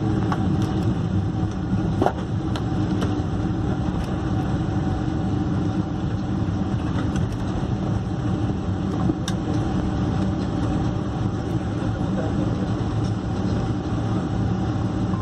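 Steady cabin noise inside a Boeing 747-400 moving on the ground after landing: its PW4000 engines near idle and a low hum, with a few light clicks and rattles.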